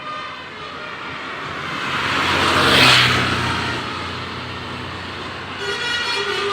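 A large vehicle, likely a tour bus, passes close by: its engine hum and rushing noise swell to a peak about three seconds in and fade away. Near the end, a bus's multi-tone telolet (Basuri) air horn starts playing its chord of tones.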